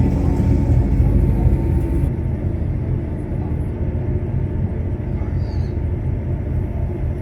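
Steady low rumble of a moving vehicle, with a faint high hiss that drops away about two seconds in.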